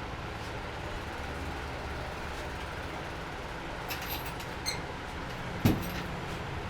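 Steady rumble of street traffic, with a few light clicks around four seconds in and a single sharp knock about a second before the end.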